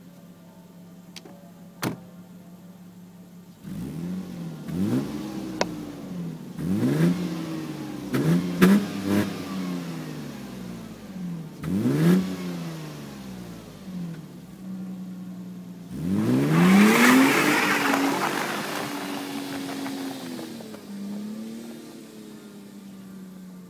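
Mercedes-Benz W202 C280's M104 inline-six idling, then blipped in a series of short revs that rise and fall back. About sixteen seconds in comes one longer, harder rev before the engine drops back to a steady idle.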